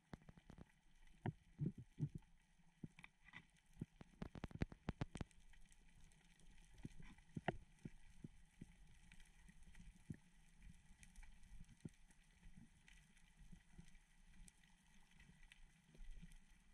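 Faint, irregular clicks and knocks muffled through a GoPro's underwater housing, with a quick cluster of them about four to five seconds in, over a low hum.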